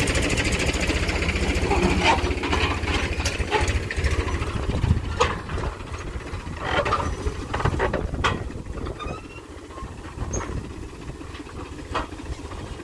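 Powertrac Euro 50 tractor's three-cylinder diesel engine running as it pulls a trailer away along a dirt track, with several sharp metal clanks from the trailer. The engine gets quieter from about eight seconds in as it moves off.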